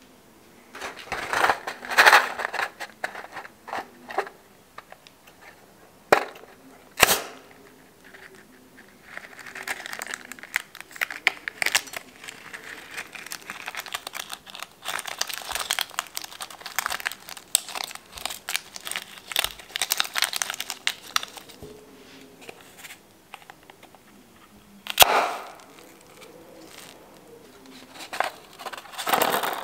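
Rubber balloons cut open with scissors and handled over a bowl of slime, close-miked. Four loud, sharp snaps, near the start, around 7 seconds, and twice near the end, stand out over long stretches of crinkly crackling from the rubber being cut, squeezed and pulled apart.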